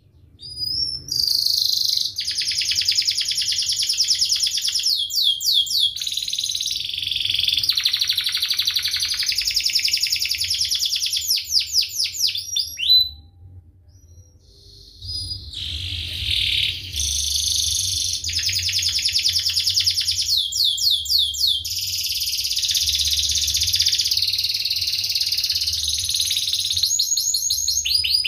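Domestic canary singing a long, dense song of fast rolling trills and sharp chirps, with a break of about two seconds about halfway through.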